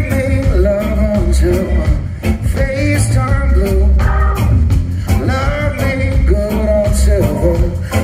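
Live reggae band playing: a lead singer over electric guitar, drum kit and organ, with heavy bass.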